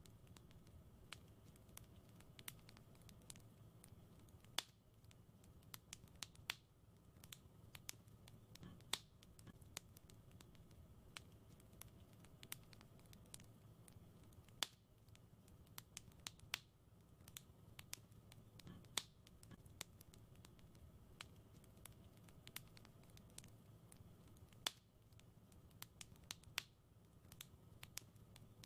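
Wood fire in a fireplace crackling softly: irregular sharp pops and snaps, a few louder than the rest, over a low steady rumble.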